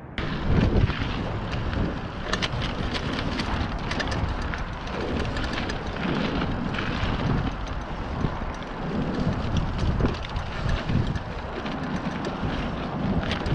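Mountain bike riding fast down a dirt trail covered in dry fallen leaves: tyres rolling and crackling over leaves and dirt, with frequent rattles and knocks from the bike over bumps. Wind rushes over the microphone throughout.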